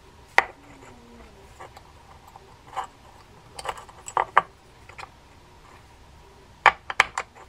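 Light clicks and taps of small metal parts as a spinning reel's spool and its drag washers are handled: one sharp click about half a second in, scattered ticks in the middle, and a quick cluster of clicks near the end.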